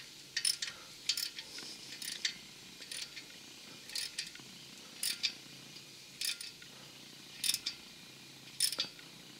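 Small socket ratchet clicking in short bursts about once a second on its return strokes, tightening the clamp screw of a new engine block heater.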